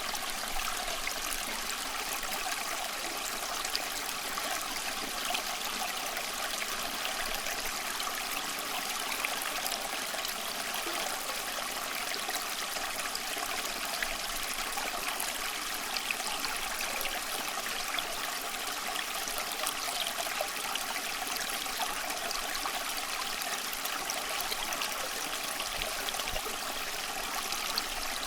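Water flowing steadily in a stream, a continuous trickling hiss with no deep rumble.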